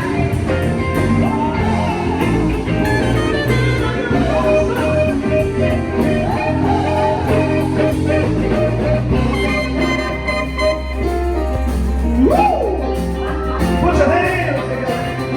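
Band music in a blues-rock style: singing over instruments with a steady drum beat.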